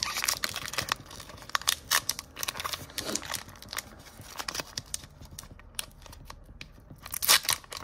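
Foil wrapper of a Pokémon booster pack being torn open and peeled apart by hand: irregular crinkling and tearing of the foil, with a louder burst about seven seconds in.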